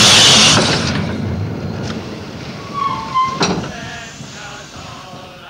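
Steam train running, its loud hiss and rumble dying away after about a second, leaving a quieter rumble with a brief high whine and a single knock about three seconds in.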